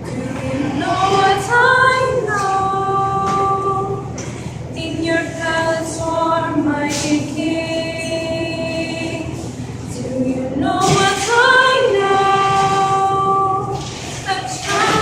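A group of schoolgirls singing a Christmas carol unaccompanied, in phrases with long held notes.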